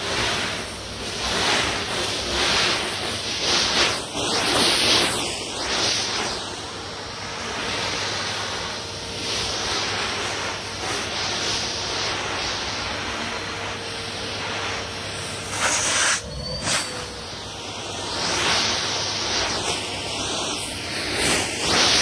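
Numatic Hetty cylinder vacuum cleaner running, its bare metal wand sucking loose beads off a carpet: a steady rushing hiss over a faint motor hum, surging and easing as the wand is pushed through the beads and lifted.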